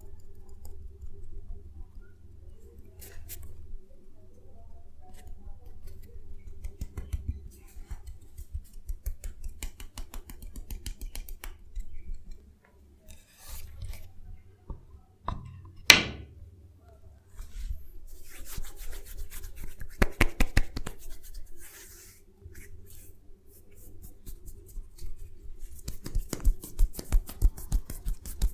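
Head and body massage sounds: runs of quick light taps, rubbing and snaps on hair and skin. One loud sharp snap comes about 16 seconds in, and fast even tapping fills the last couple of seconds.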